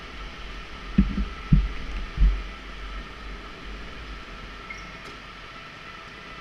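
Onboard sound of an electric go-kart running slowly in traffic: a steady hum of the electric drive and tyres with a thin high whine, broken about a second in by three dull low thumps within just over a second.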